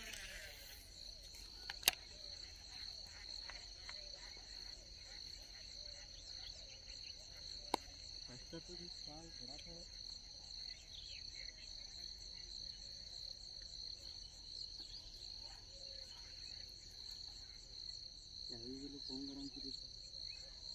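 Insects chirring steadily at a high pitch with a fast even pulse, a constant shrill background. Two sharp clicks stand out about two and eight seconds in, and faint distant voices murmur briefly twice.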